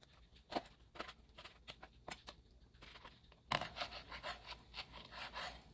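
Chef's knife cutting raw fish fillets into chunks on a plastic cutting board, the blade tapping and scraping the board in scattered strokes, then a quicker run of cuts about three and a half seconds in.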